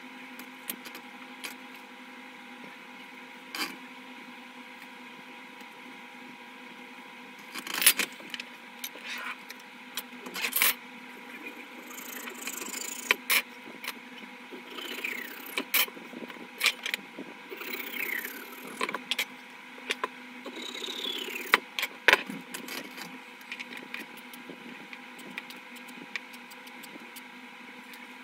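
Hand-tool work on thin wooden strips. Tools and wood pieces click and knock on a tabletop, and in the middle there are stretches of rasping saw and file strokes on the wood, all over a steady hum.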